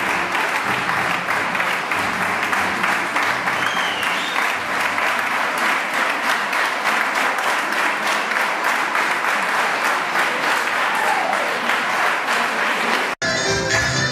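Audience applauding steadily. About 13 seconds in, the applause cuts off abruptly and music starts.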